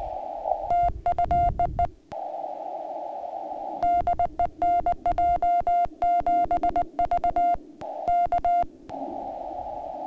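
Morse code sent on an N6ARA TinyPaddle, heard as the radio's sidetone: a steady mid-pitched beep keyed into dits and dahs in three runs. Between the runs the receiver's narrow-filtered band hiss comes back, and it drops out while the tone is keyed.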